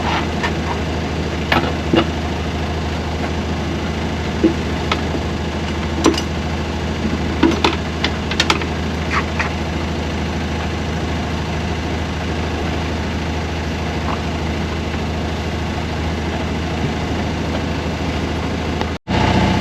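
A sailboat's auxiliary engine running steadily in forward gear at low speed while motoring, a constant low hum, with a few scattered clicks and knocks in the first half.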